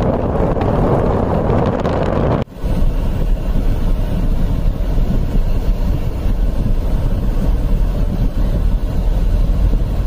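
Blizzard wind buffeting the microphone as a loud, continuous rushing noise. After a brief break about two and a half seconds in, the noise turns lower and steadier, heard from inside a car.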